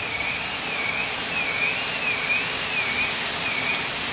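Hail falling on a street, a steady dense hiss of hailstones striking the road. A thin high tone wavers up and down about twice a second throughout.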